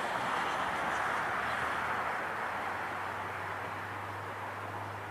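Twin-turboprop airliner's engines and propellers heard from across the airfield as a steady rushing drone that slowly fades, with a low steady hum coming in about halfway through.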